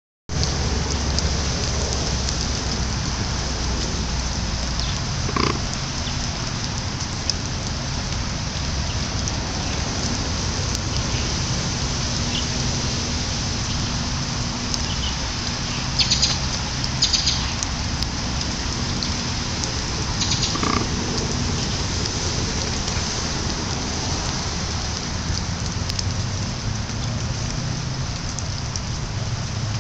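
Steady hiss of light rain, with a few brief yips from Doberman puppies spread through it.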